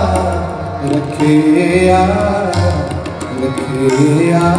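Live Sikh kirtan music: two Nagi harmoniums playing the shabad melody over a steady tabla rhythm.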